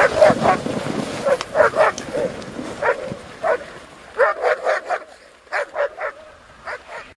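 Sled dogs barking and yipping, many short calls that come thick and overlapping at first, then in scattered clusters that thin out toward the end.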